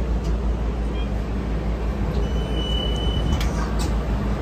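Steady low rumble of a funicular incline railway car, with a single high electronic beep lasting about a second near the middle, followed by a couple of sharp clicks.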